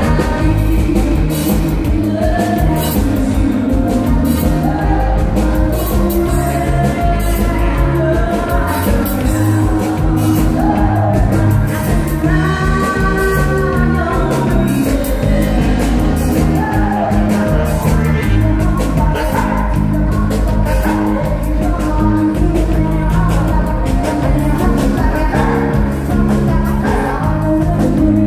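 A live band plays an upbeat song with a steady beat, a woman singing lead through a microphone over electric guitar.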